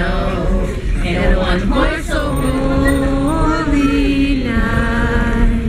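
Several voices singing a song together, led by a woman's voice through a microphone, with long held notes.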